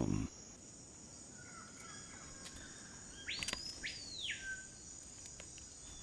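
Rainforest ambience: a steady high-pitched insect drone with faint scattered bird chirps. About three seconds in, one louder whistled bird call rises steeply, holds high, then drops away, lasting about a second.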